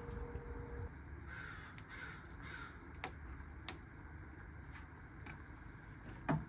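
A crow cawing three times in quick succession, about a second in, followed by a few sharp, light clicks.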